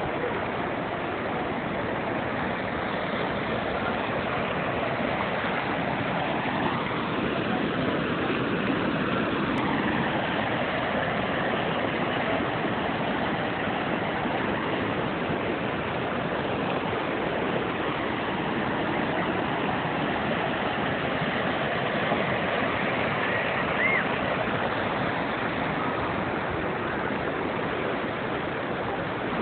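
Steady rushing of floodwater running over ground and pavement after a levee breach, an even, unbroken wash of water noise.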